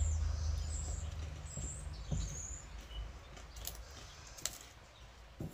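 Quiet chewing of a candy covered in coconut flakes, with a few soft mouth clicks spread through. Faint high squeaks come in the first couple of seconds.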